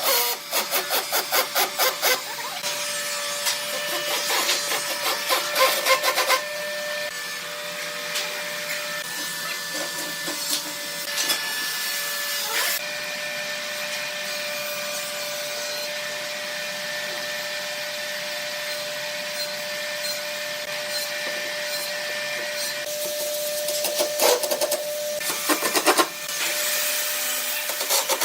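Woodworking tools working wood: rapid rhythmic scraping strokes, about four or five a second, then a small power tool running with a steady whine and hiss, and a second bout of strokes near the end.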